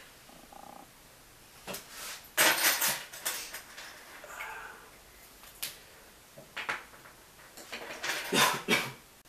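Makeup items handled in the hands: several short bursts of clicking and rustling, the loudest about two and a half seconds in and again near the end.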